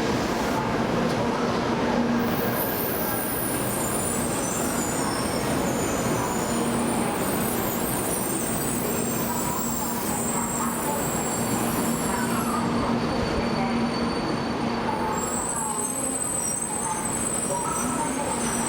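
700 series Shinkansen train at a station platform at the end of its arrival, with steady running and equipment noise, a low hum and a high thin whine, and voices in the background.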